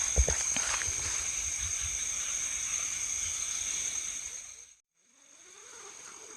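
Steady high-pitched chorus of night insects, several shrill tones held together, with a few low thumps in the first second. It cuts out abruptly about five seconds in and comes back fainter, with some low wavering sounds under it.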